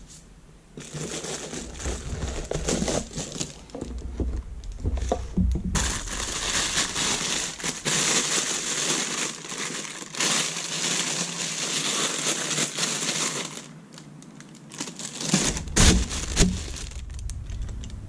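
Plastic bag and wrapping crinkling and rustling as a parcel is unpacked, densest through a long stretch in the middle. A few sharp knocks from handling come near the end.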